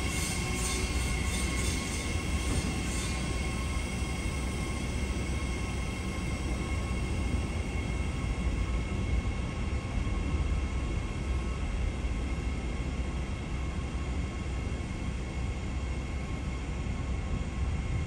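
Mariyung electric multiple-unit train moving slowly along a station platform: a steady low rumble with steady high-pitched whine tones from its running equipment.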